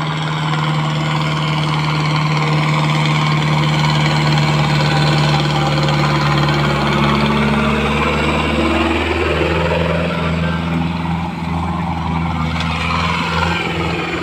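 Powertrac Euro 60 tractor's diesel engine working steadily under load as it drags a field implement through loose soil. The tractor passes close by, and its engine note shifts about nine seconds in.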